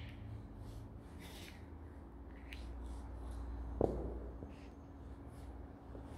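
A platform high-heeled shoe pressing down on a small plastic cap on a tiled floor, with faint scattered clicks and scrapes and one sharper knock about four seconds in. A steady low hum runs underneath.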